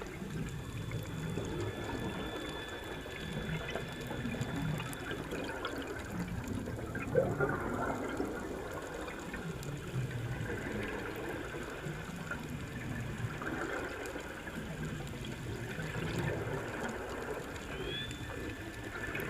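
Water sound, a continuous noisy wash that swells and ebbs about every two and a half seconds.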